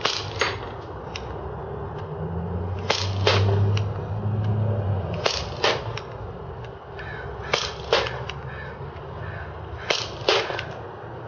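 HFC Colt .25 non-blowback propane-gas airsoft pistol fired five times, slowly. Each sharp pop is followed a fraction of a second later by a smaller click as the BB reaches the target.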